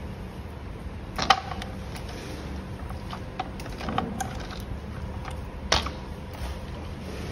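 Cylindrical lithium-ion cells clicking and knocking against each other and on the work mat as they are handled and set down. There are a few sharp clinks, the loudest about a second in, over a steady low hum.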